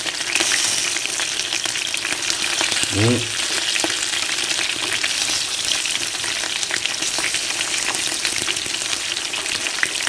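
Fish-paste-wrapped tofu pieces deep-frying in hot oil: steady sizzling with many fine pops. A short rising vocal sound comes about three seconds in.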